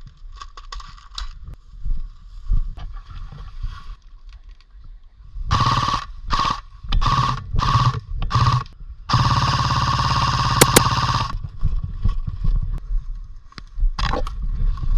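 Airsoft AK-74U replica firing on full auto: five short bursts a little past the middle, then one long burst of about two seconds, each burst a rapid run of shots over a steady whine. Light clicks and rustling come before the firing.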